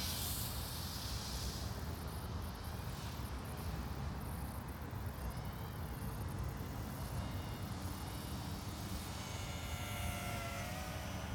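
Racing quadcopter's electric motors whining at a distance, the pitch rising and falling with the throttle, growing clearer near the end, over a steady low rumble.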